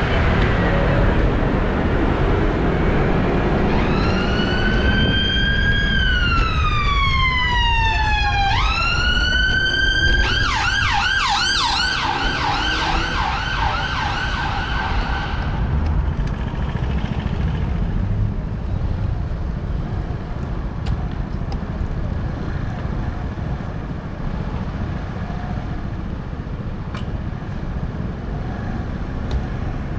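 Emergency vehicle siren sounding in traffic: a slow wail that climbs and then falls in pitch, then a switch to a fast yelp for about five seconds, stopping about halfway through. Steady road traffic noise runs underneath.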